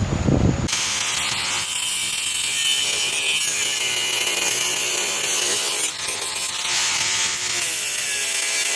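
A cutoff wheel spinning and grinding through the steel ear and lip of a car's front suspension crossmember. It is a steady, loud, high-pitched grinding hiss with a faint whine, starting about a second in and dipping briefly near the end.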